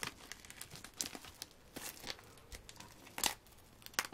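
Clear plastic shrink wrap crinkling and crackling as it is pulled off a CD album by hand, in irregular snaps with the sharpest ones about three and four seconds in.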